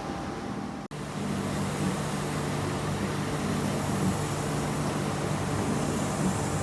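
1984 Aida NC1 150-ton mechanical press running under power: a steady machine hum, with a brief break just under a second in.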